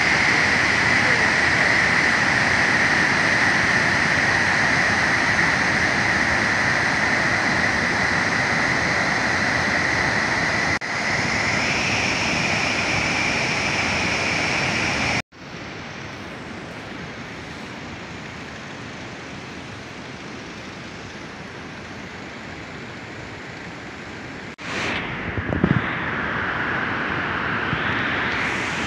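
Muddy flash-flood river rushing through a gorge: a steady, loud noise of water. It drops abruptly to a quieter level about halfway through and comes back up near the end.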